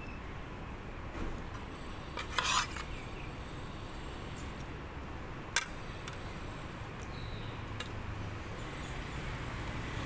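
Spoon and fork clinking and scraping against a plate: a short run of clinks about two and a half seconds in, then one sharp clink about halfway through, over a steady low background hum.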